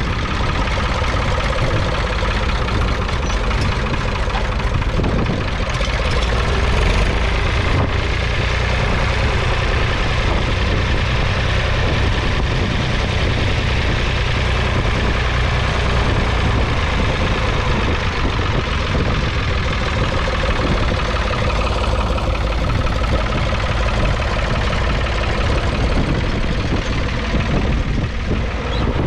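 1972 David Brown 885's 2.7-litre three-cylinder diesel engine running steadily as the tractor works across the field with a two-furrow mounted plough.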